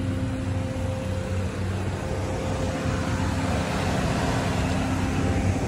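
A car engine idling, a steady low hum. A wider rushing noise swells in the middle and eases near the end.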